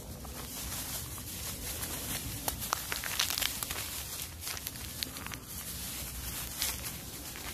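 Rustling and scattered light crackles as a plastic-gloved hand moves through cucumber leaves and stems, over a steady low rumble.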